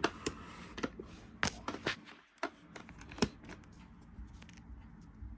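Hands handling plastic toys and packaging: scattered light clicks and taps, with a little rustling.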